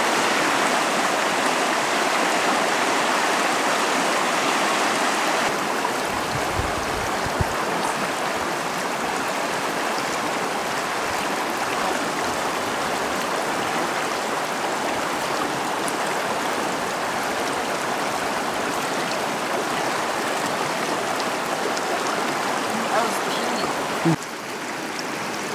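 Steady rush of a shallow mountain creek running over rocks. Its tone changes abruptly about five seconds in and again near the end, and there is a brief low rumble at about six seconds.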